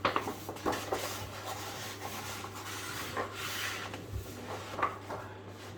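Wallpaper being handled on a pasting table: paper rustling and rubbing against the table, with a few light knocks.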